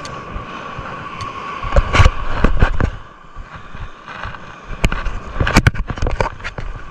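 Handling noise on a body-worn GoPro action camera: a hand and clothing rubbing and knocking against it in quick clusters about two seconds in and again from about five to six and a half seconds in, over a steady outdoor hiss.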